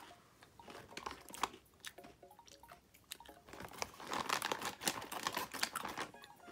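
Plastic snack packaging crinkling and rustling as it is handled, with scattered sharp clicks, busiest from about four to six seconds in.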